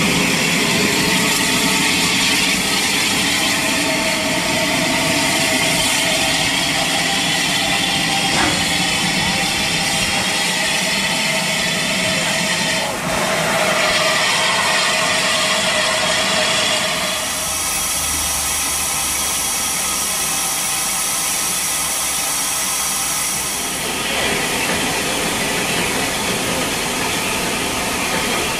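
Unrebuilt Bulleid West Country class Pacific No. 34007 'Wadebridge' standing with steam up, steam hissing steadily from around its cylinders. A harsher, higher hiss with a low hum joins for about seven seconds past the middle, then falls back.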